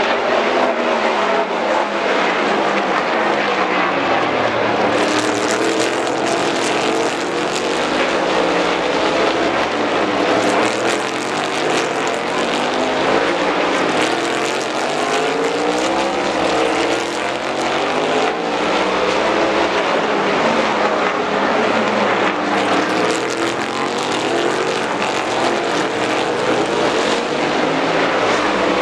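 Several race car engines running hard through a corner, one after another. Their engine notes overlap in waves that rise and fall in pitch as the cars pass.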